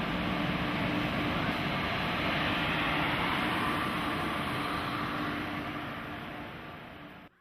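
Steady vehicle noise with a held hum underneath, swelling slightly and then fading away, before cutting off abruptly at the end.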